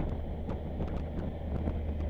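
Motorcycle on the move, with wind rushing over the microphone over a steady low engine drone, and scattered light ticks on top.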